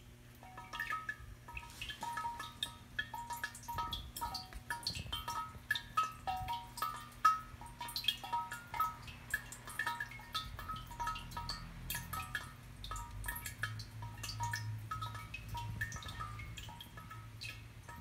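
Water drops falling inside a Shigaraki-ware ceramic suikinkutsu (a round 'maru tōkin'), each ringing out as a short, clear note. The notes come at a few different pitches, several a second at irregular intervals.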